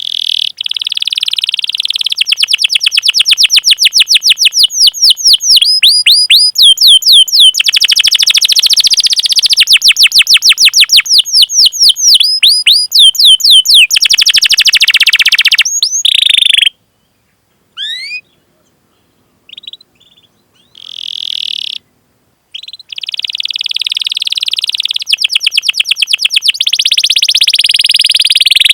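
Domestic canary singing: long, fast rolling trills of repeated sweeping high notes. About halfway through the song breaks off for several seconds, leaving a few scattered single chirps, before the dense trilling resumes.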